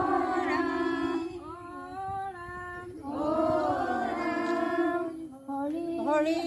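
Several voices singing or chanting together in long, held phrases, with brief breaks between them.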